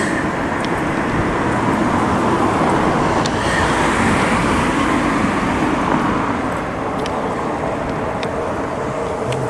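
Southern Class 377 Electrostar electric multiple unit running past on the track: a steady rumble of wheels on rail, a little louder in the middle, with a few faint clicks.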